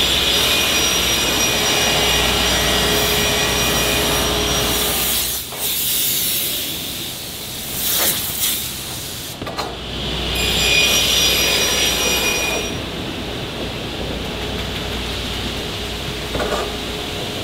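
Computerized panel beam saw cutting melamine-faced particleboard, its blade giving a loud high whine that breaks off about five seconds in. Around the eighth second come two short hissing blasts from a compressed-air blow gun. Then the saw's high whine returns for a couple of seconds before dropping to a quieter, steady machine running noise.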